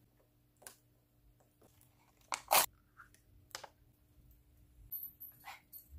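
Short rustling and crinkling noises as props are handled, among them a handful of grass stalks. The louder noises come about two and a half seconds in.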